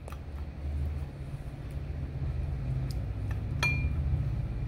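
Silicone spatula scraping mayonnaise from a small glass bowl into a larger one, with a few light taps and one ringing clink of glass on glass about three and a half seconds in, over a low steady hum.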